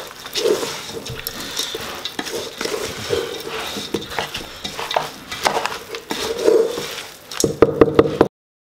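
Wooden spatula stirring and tossing dry puffed-rice chatpate in a rice-cooker inner pot: a crunchy rustling crackle with scrapes and knocks against the pot. A quick flurry of sharper knocks comes near the end before the sound cuts off suddenly.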